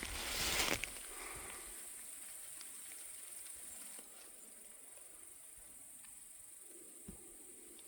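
Insects singing in a steady high-pitched drone, with a short burst of rustling noise at the very start.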